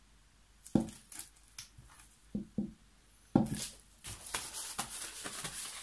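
Several sharp knocks of objects being handled on a plastic-covered table, the first the loudest, then from just past halfway a longer stretch of rustling and clattering.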